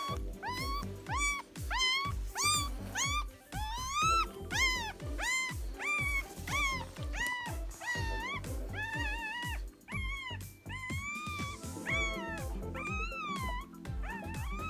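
Newborn Pug–Boston Terrier cross puppy crying in short, high squeals that rise and fall, about two a second, over background music with a steady beat.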